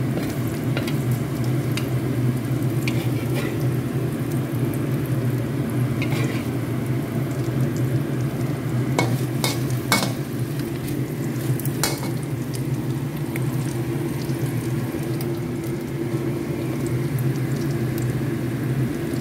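Pork belly pieces with ginger and garlic frying in a steel wok, with a metal spatula scraping and clacking against the wok at irregular moments as they are stirred. A steady low hum runs underneath.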